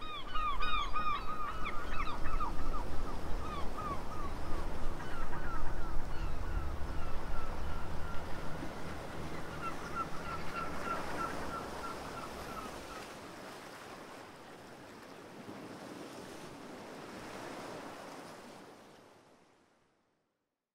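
Birds calling again and again in short honking cries over a steady rushing noise. The calls thin out and stop about two thirds of the way through, and the rush fades away to silence near the end.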